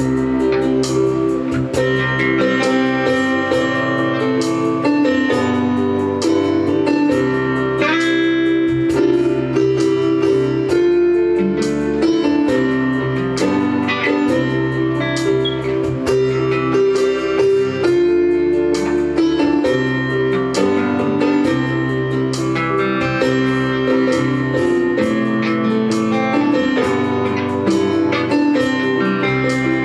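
Instrumental music from an acoustic guitar and a Casio electronic keyboard playing together. Plucked guitar notes run over sustained keyboard chords and bass.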